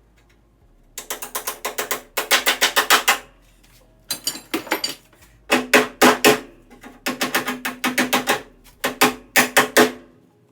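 Hand ratchet wrench clicking in quick runs of about a second each, with short pauses between them, as a nut or bolt is turned on the Humvee.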